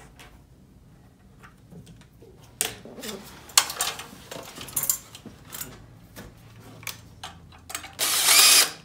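A metal hose clamp and a chrome two-stroke expansion chamber clink and rattle as they are handled. Near the end a Makita cordless drill spins up briefly on the hose clamp's screw with a rising whine, the loudest sound here.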